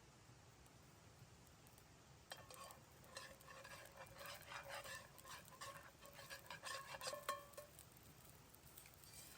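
Faint metallic clinking and scraping, a run of quick clicks with a ringing tone, starting about two seconds in and stopping near the end.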